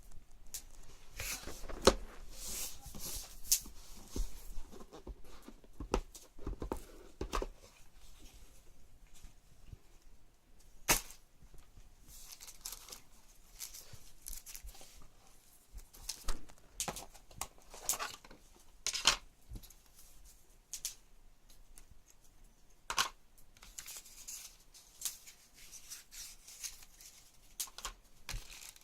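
Unboxing handling sounds: packaging rustling and tearing, with scattered sharp clicks and taps as parts are lifted out and set down. There are several louder snaps, about 2, 11, 19 and 23 seconds in.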